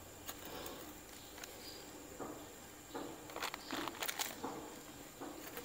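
Faint rustling of newspaper and soft knocks as unripe plantain-type bananas are picked up and set down on it, with a few small clicks between about two and four and a half seconds in.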